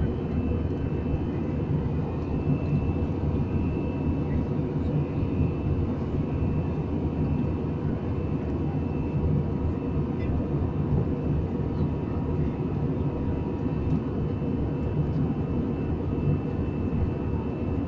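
Steady drone of an airliner's engines and airflow heard inside the passenger cabin during the climb after takeoff, with a faint steady high whine above the low rumble.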